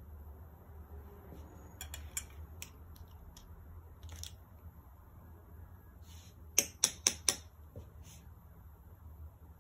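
Makeup tools being handled: scattered light clicks and taps, then four sharp clicks in quick succession about two-thirds of the way in, over a low steady hum.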